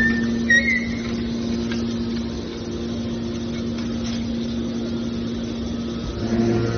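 Metal press baler machine running with a steady hum. A couple of short high squeals come within the first second.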